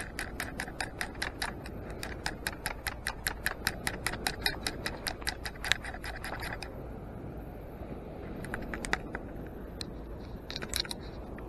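Beach sand scoop being shaken to sift out a detected target: a quick, even rattling tick about five or six times a second that stops about two-thirds of the way in, followed by a few scattered clicks.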